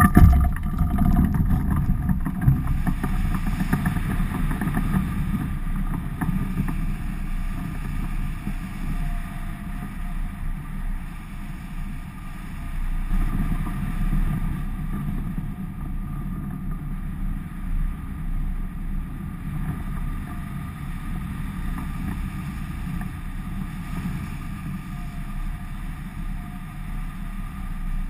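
Wind rushing over the microphone of a camera mounted on a hang glider in flight: a steady low buffeting rumble, loudest in the first few seconds as the glider leaves the slope.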